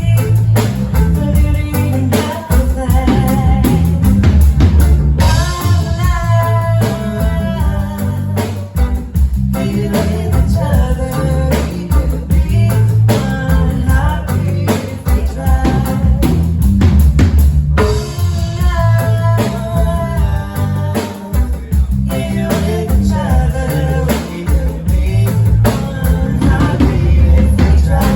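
A live band playing a song: a singer over guitar and drum kit with a heavy low end.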